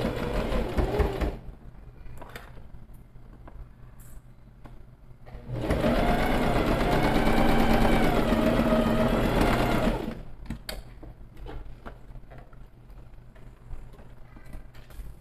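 Domestic sewing machine stitching seams. There is a short run of about a second at the start, then a longer run of about four seconds in the middle with the motor's pitch wavering slightly, and light clicks from handling the fabric between the runs.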